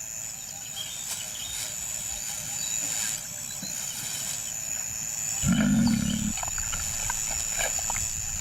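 A lion gives one short low roar about five and a half seconds in, over a steady high drone of insects in the bush.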